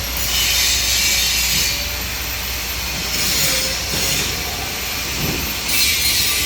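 Argon-shielded TIG welding arc buzzing and hissing over a steady low hum, with the high hiss growing stronger and weaker in stretches of a second or two.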